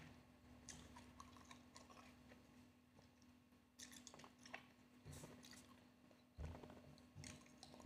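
Faint chewing, with scattered small wet mouth clicks: a person eating fresh sweet cherries. It is a little louder about six seconds in.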